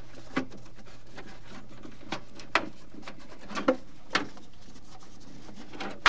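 Scattered light knocks and taps, about half a dozen, from hands handling the evaporator coil, tubing and foam blocks inside a refrigerator's freezer compartment; the sharpest knock comes at the very end.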